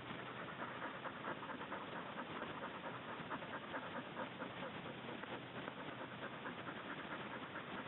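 A hunting dog panting quickly and steadily.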